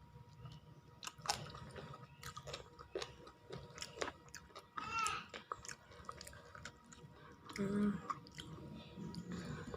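A person chewing a meal of rice and fried chicken close to the microphone, with many short mouth clicks. Two brief pitched sounds come about five and eight seconds in.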